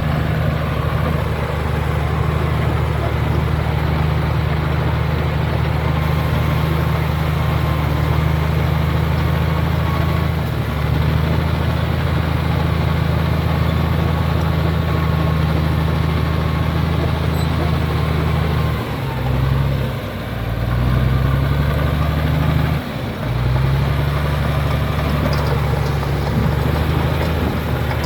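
Komatsu D83E bulldozer's diesel engine running steadily, with two brief drops in its note about two-thirds of the way in.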